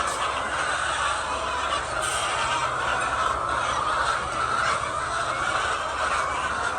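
A large flock of laying hens clucking and calling at once, a dense, steady chatter, over a faint low hum.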